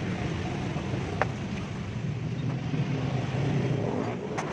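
A motor vehicle engine running steadily with a low rumble, a sharp click about a second in and another near the end.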